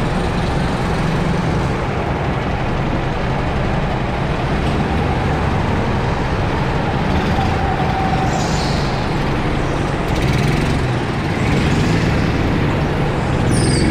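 Go-kart engines running in a line of karts in an indoor hall, a steady engine drone with the driver's own kart close by. It grows a little louder near the end as the karts pull away.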